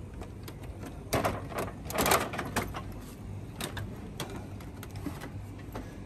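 Plastic clicks and rattles as the front cover of a split air conditioner's indoor unit is unclipped and lifted off, the busiest clatter about one to three seconds in, then a few scattered clicks, over a steady low hum.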